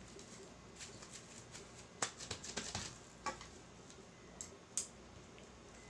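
Plastic cling wrap being pulled off its roll and stretched over a bowl, crinkling and crackling in scattered bursts, busiest about two seconds in.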